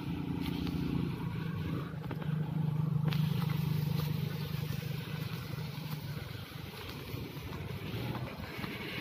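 Engine of a small mini pickup truck driving by: a steady low hum that grows louder a couple of seconds in and fades away after about six seconds.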